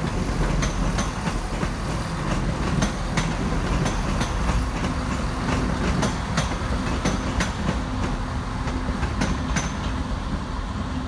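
ScotRail Class 170 Turbostar diesel multiple unit pulling out, its underfloor diesel engines running with a low drone and its wheels clicking irregularly over the points and rail joints. A steady engine note comes in about four seconds in.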